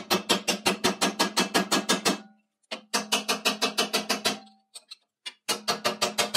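Cold chisel with a TIG-welded tool-steel edge being struck with rapid hammer blows while cutting into 1/8-inch mild steel plate held in a vise, a test of the hardfaced edge. The blows come in three quick runs with short pauses between, each with a ringing metallic tone.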